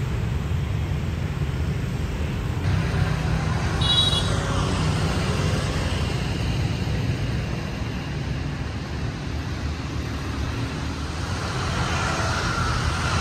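City street traffic: a steady rumble of passing vehicles, with a brief high-pitched tone about four seconds in.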